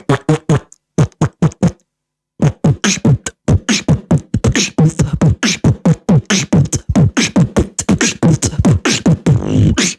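Beatboxer's mouth-made alien sound effect: a fast run of short, warbling vocal chirps, many sliding down in pitch, with a brief pause about two seconds in.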